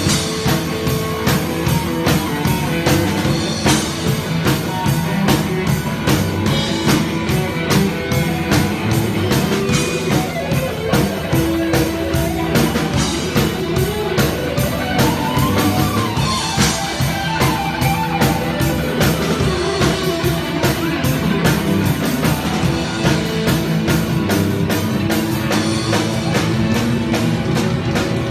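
A live rock band playing loud: distorted electric guitar over a steady, driving drum-kit beat, without a break.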